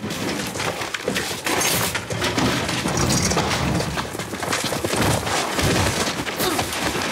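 A physical fight: a dense, continuous run of knocks, thuds and scuffling, with wood cracking and splintering.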